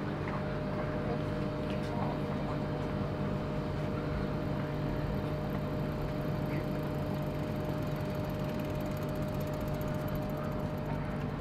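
Steady mechanical hum of a refrigerated ice-cream vending machine's cooling unit, with a constant tone held over it.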